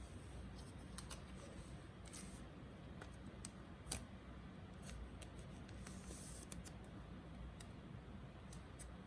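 Faint handling of thick-cardstock trading cards and plastic card sleeves: scattered soft clicks and brief rustles, with one sharper tick about four seconds in.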